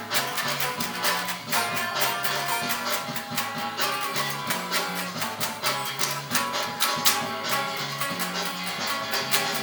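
Guitar music with quick, evenly spaced strokes and chords changing over a low line of notes.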